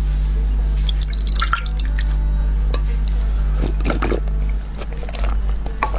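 Yogurt sago pudding being spooned and eaten: scattered wet, sticky clicks and smacks, over a steady low hum.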